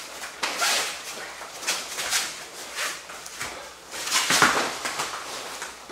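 Martial-arts uniforms rustling and snapping, hands slapping and bare feet moving on a training mat. A string of sharp hits runs through it as a punch is parried and knee strikes follow in a clinch. The heaviest thump comes about four and a half seconds in.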